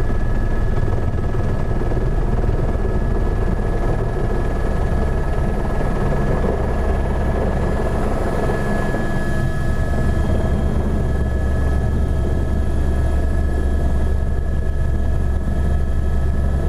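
AS350 A-Star helicopter heard from inside the cabin as it comes in to land: a steady low rotor rumble under a thin, steady turbine whine. The low rumble grows stronger about halfway through.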